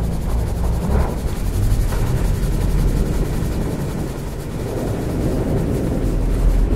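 Large drums with their heads rubbed by hand, giving a low, continuous rumble.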